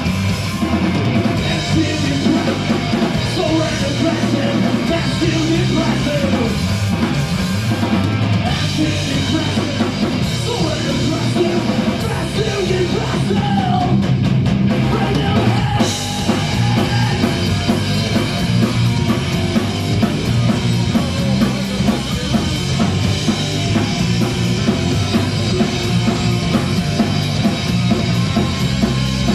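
Live heavy rock band playing loud: electric guitars and bass through amplifiers over a drum kit, with a singer shouting into the microphone.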